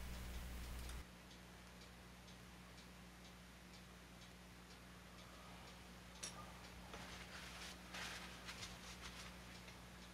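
Faint room tone with soft, evenly spaced ticking, and brief rustling of a paper shop towel between about six and nine seconds in as a small plastic windshield part is dried and set down. A low hum drops away about a second in.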